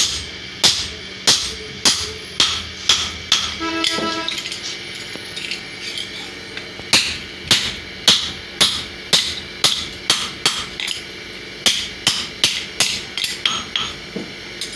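Hand hammer striking a red-hot axe head on a steel anvil block, about two ringing blows a second. There is a pause of a couple of seconds about four seconds in, then the strikes resume. The blows shape the axe blade.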